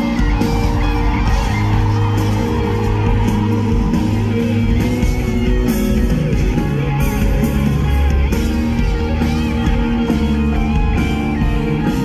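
Live rock band playing the song's instrumental passage, electric guitar to the fore over bass and drums, with no clear singing.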